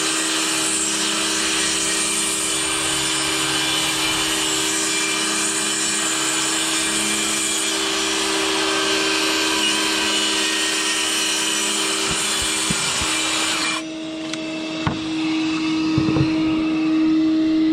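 Track saw cutting lengthwise through wooden deck boards: a steady motor whine under a dense cutting hiss. About fourteen seconds in, the cutting hiss stops abruptly while a steady whine carries on, with a few knocks near the end.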